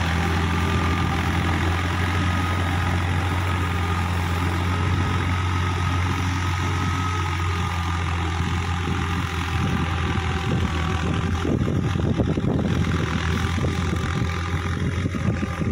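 Tractor diesel engine running steadily under load as it pulls a tillage implement through wet paddy-field mud, a constant low hum. Some uneven crackling noise joins in over the last few seconds.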